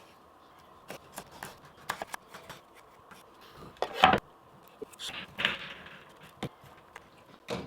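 Victorinox pocket knife blade cutting through raw carrot: a series of crisp cracks and taps, the loudest about four seconds in.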